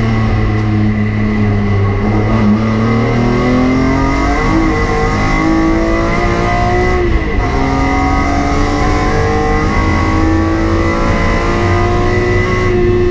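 BMW E46 M3's S54 straight-six heard from inside the cabin under hard track driving, revs climbing through the gears. The revs drop sharply about seven seconds in, then climb again and fall away near the end.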